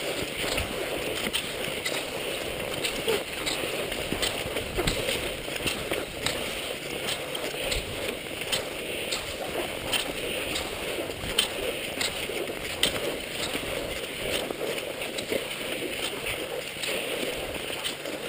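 Cross-country skis sliding and scraping along a groomed snow track, with a regular click of ski poles planting a little faster than once a second.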